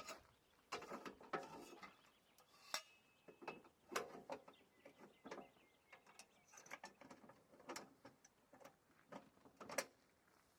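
Faint, irregular clicking and rustling of gear being handled, with sharper knocks about four seconds in and again near the end.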